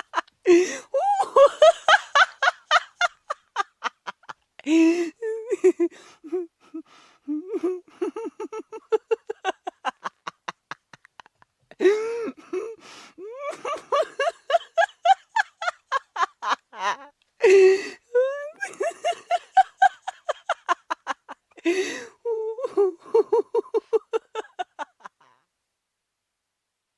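A person laughing hard in long fits of rapid ha-ha pulses, each fit falling in pitch, with sharp gasping in-breaths between the fits. The laughter stops near the end.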